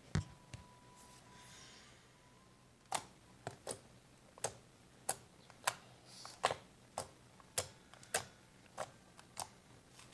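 A bump as the phone is set down, then fingertips poking and pressing fluffy slime, making about a dozen sharp clicking pops at uneven intervals from about three seconds in.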